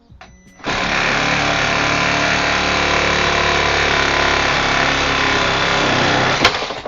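A Milwaukee M12 Hackzall (2420-20, the non-Fuel version), a 12-volt cordless one-handed reciprocating saw fitted with a wood blade, cutting through a piece of wood. It starts under a second in and runs steadily for about six seconds. There is a sharp crack just before it stops.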